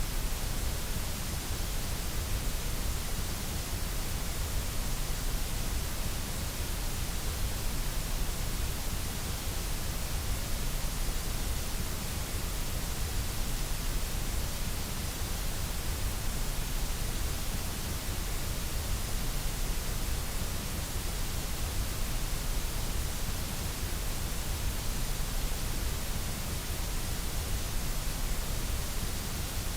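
Steady white noise: an even, unchanging hiss across all pitches with a low rumble underneath.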